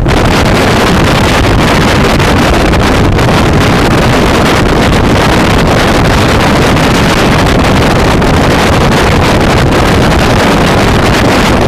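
Heavy wind noise buffeting the microphone of a motor scooter ridden at speed, a loud, steady rush with no clear engine note standing out.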